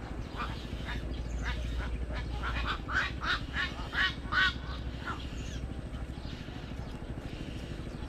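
Egret chicks giving a run of short, harsh calls that come closer together and louder between about two and a half and four and a half seconds in, then stop about five seconds in, over a steady low rumble.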